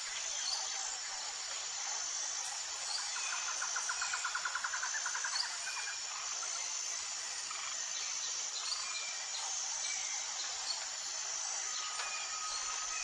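Outdoor ambience of insects buzzing steadily and high-pitched, with a few short bird chirps and a rapid trill a few seconds in.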